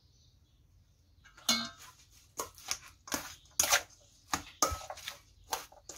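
Metal spoon knocking and scraping against a stainless steel mixing bowl as a rice-noodle salad is tossed. Sharp, irregular clacks begin about a second and a half in.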